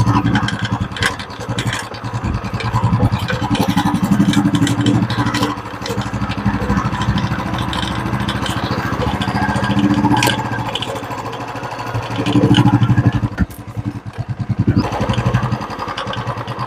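Royal Enfield Classic 350's single-cylinder engine running as the bike is ridden over a bumpy road, the throttle opening up twice, with a few light knocks from the front end. The knocking is the 'khat khat' sound of something loose at the front, which the mechanic later puts down to a loose bolt.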